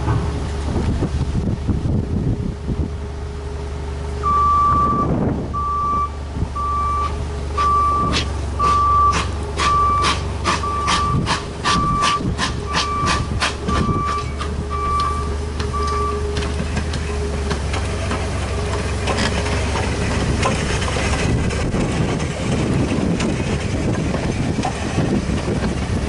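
BR Standard Class 2MT 2-6-0 steam locomotive moving slowly, with sharp clanks from its wheels and running gear and louder noise near the end as it passes close. A repeated electronic beep, about one a second, sounds for some twelve seconds in the middle.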